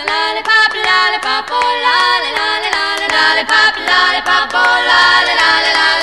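Background music: a sung melody over a steady beat.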